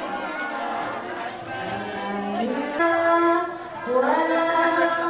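Voice singing a salawat, an Islamic devotional chant, in long held notes that slide up in pitch twice.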